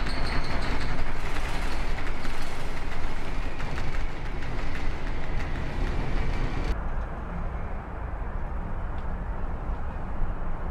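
Storm noise aboard a ship at sea: wind and heavy seas over a deep, steady rumble. About seven seconds in the sound abruptly turns duller and more muffled.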